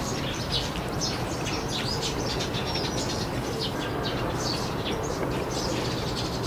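Small birds chirping on and off, many short chirps over a steady low background noise.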